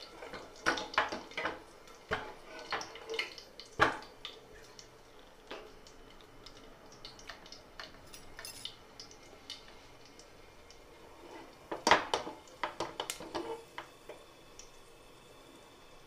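Cumin seeds and dried red chillies crackling in hot oil in a pressure cooker for a tadka: irregular sharp pops, in a flurry during the first few seconds and again about twelve seconds in, with scattered pops between.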